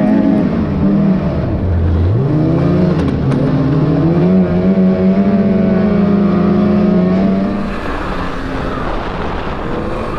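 Snowmobile engine under way. It drops back about a second in, revs up over the next two seconds and holds a steady pitch, then eases off about eight seconds in.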